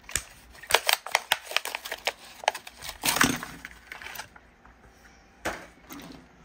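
Hot Wheels blister pack torn open by hand: the clear plastic bubble crackles and snaps in a quick run of sharp clicks as it is peeled off the cardboard card, loudest about three seconds in, with one more short crackle near the end.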